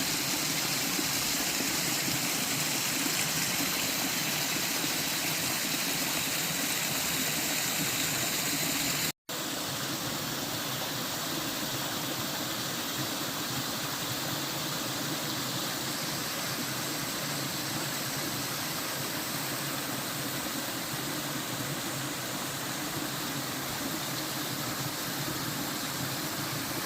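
Waterfall rushing in a steady, even roar of falling water, broken by a split-second gap about nine seconds in, after which it carries on with a slightly different tone.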